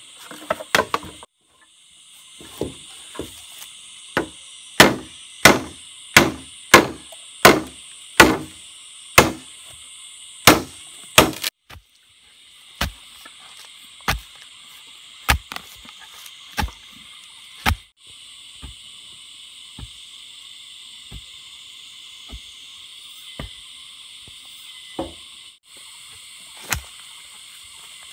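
Bamboo being chopped with a blade: a run of sharp, regular strikes about one every two-thirds of a second, then fewer, fainter strikes through the second half.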